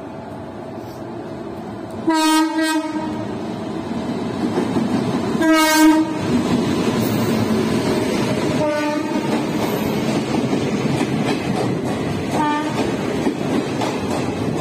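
Indian Railways WAG-9 electric locomotive sounding its horn in four short blasts, the first two loudest and the last two fainter, as it runs through the station. Under the horn, the steady rumble and clatter of the passing coaches grows louder.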